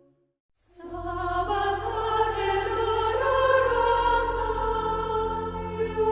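Choral music: a choir singing long held notes over a steady low bass, starting suddenly about a second in after a brief silence.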